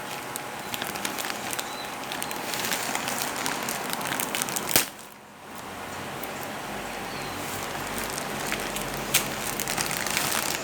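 Tape being pulled off a gift package and its wrapping crinkling and rustling as it is handled, a steady crackle of small clicks with one sharp, louder crack about halfway through.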